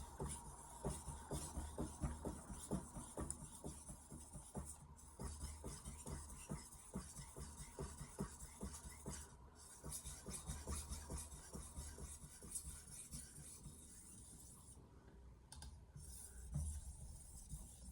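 A Mercer 8-inch Granton-edge knife being stroked back and forth on a Shapton Pro 2000-grit whetstone: a steady run of faint scraping strokes, about two a second, growing sparser near the end.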